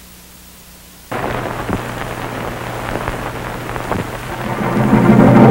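Opening of an old film soundtrack: a steady noise with a low hum starts abruptly about a second in, and near the end orchestral music with brass comes in and grows louder.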